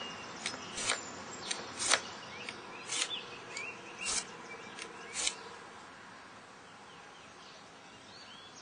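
Hand file drawn in light strokes along a broadhead's steel blade, about seven short strokes roughly a second apart that stop a little past five seconds in. This is the final filing that refines the edge down to a small, even burr.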